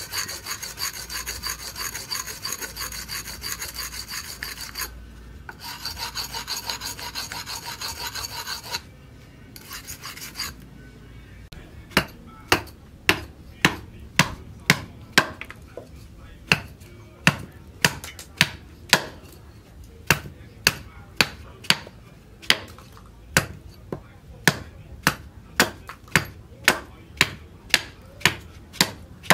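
Steel axe blade rubbed back and forth on a wet sharpening stone, a steady scraping with a short break about five seconds in. After a quieter lull, a hammer strikes the back of the blade about twice a second, driving its edge into a wooden beam; these sharp knocks are the loudest sounds.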